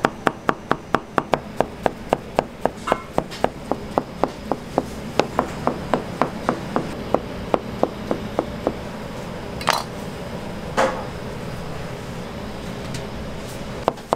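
Chef's knife chopping rolled thin egg omelette into fine strips on a cutting board: quick even knocks of the blade on the board, about four a second, that stop some eight and a half seconds in. Two short noisy sounds follow a second apart, and the chopping starts again near the end.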